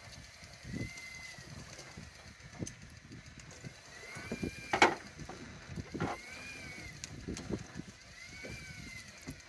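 Electric fishing reel winding in a heavy halibut, its motor whine swelling up and down in pitch about four times as the load on the line rises and eases. Low knocks and a single sharp click near the middle sound over it.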